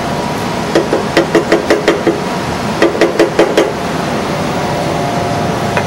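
A metal utensil tapping rapidly against a copper saucepan, each tap ringing briefly. The taps come in two quick runs of about seven and then six, at about five a second, over a steady background hiss.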